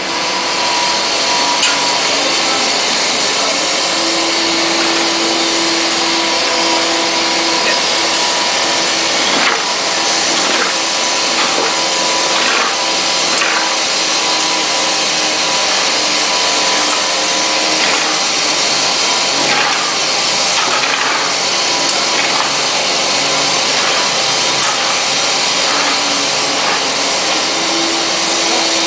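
Facade paint-spraying rig running: a loud, steady hiss with an even mechanical hum underneath.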